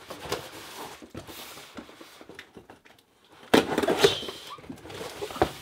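A cardboard shipping package being opened by hand: paper and packing material rustling with scattered crackles, then a louder burst of packaging noise about three and a half seconds in that lasts about a second.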